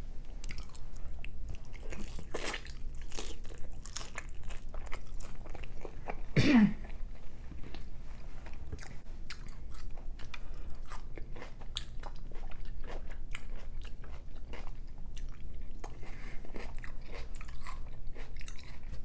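Close-miked eating sounds of birria tacos dipped in consommé: biting and chewing, a steady string of small wet clicks and crunches. One short louder sound about six and a half seconds in.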